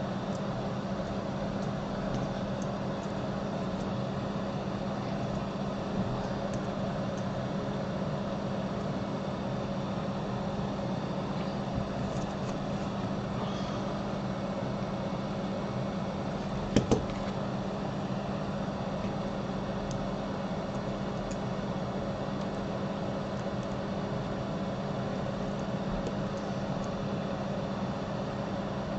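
A steady mechanical hum, with a brief double click about seventeen seconds in.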